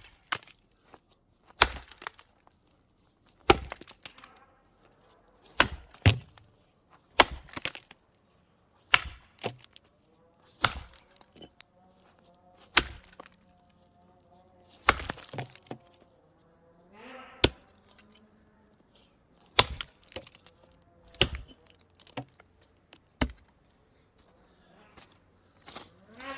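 An axe chopping into a wooden block, a sharp chop about every one and a half to two seconds, with a longer pause about two-thirds of the way through.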